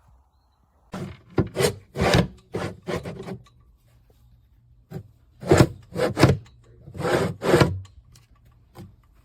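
Nightstand drawer scraping in and out of its opening, in two spells of short strokes. It has no tracks or slides, so it rubs directly against the cabinet.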